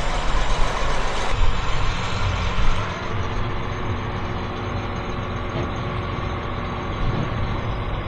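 Tractor engine running steadily while the grain cart's hydraulic auger folds down into transport position.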